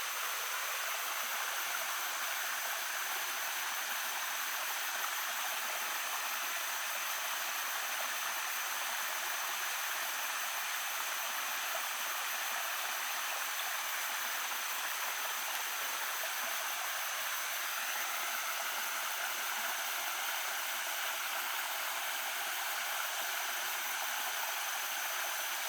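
Small stream babbling steadily, an even rush of water that does not change.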